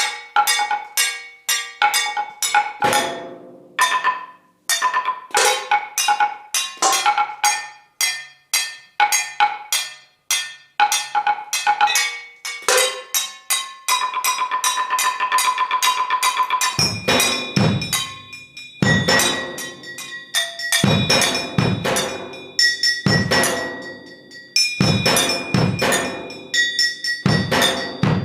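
Solo percussion music on struck metal objects: fast, sharp strokes that each ring at a fixed pitch, a quick roll in the middle, then heavier strikes with deeper ringing.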